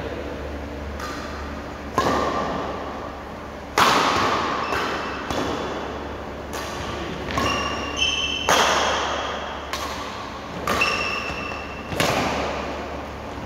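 Doubles badminton rally: rackets hitting the shuttlecock back and forth in about a dozen sharp smacks at irregular intervals, each echoing in a large hall.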